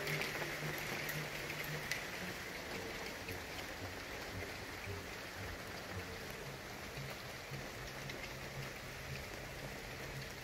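Steady rain falling on garden foliage, an even hiss with scattered individual drop ticks.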